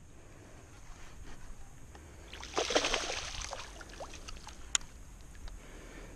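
A hooked bass splashing and thrashing at the water's surface for about a second, a little over two seconds in, as it is reeled to the boat. A single sharp click follows near five seconds in.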